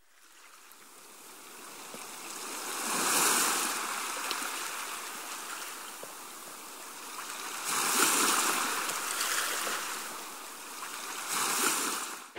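Ocean surf washing on a rocky shore. It fades in from silence and swells three times as waves break, about three seconds in, about eight seconds in and near the end.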